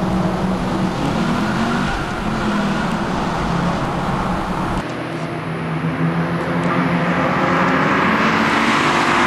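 Car engine running at a steady pitch, heard from inside the cabin while driving through a road tunnel. About halfway through the sound cuts abruptly to a car's engine on a race track, which grows louder as the car comes closer.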